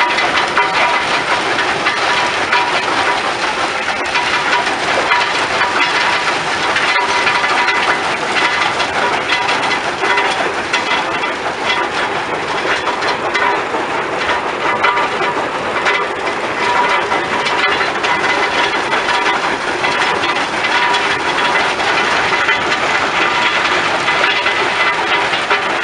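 Stone crushing and screening plant running: a steady, dense clatter of rock through the crusher and screens and along the conveyor belts, with a faint steady machine whine.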